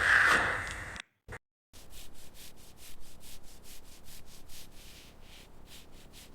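Loud, dense abrasive scraping that cuts off abruptly about a second in. After a short gap come fainter, rhythmic rubbing strokes, about three a second, like hand sanding.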